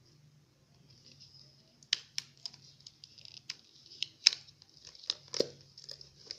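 Plastic wedges of a 48-piece Rubik's Snake twist puzzle clicking as they are turned against each other and snapped into new positions. A run of sharp, irregular clicks starts about two seconds in.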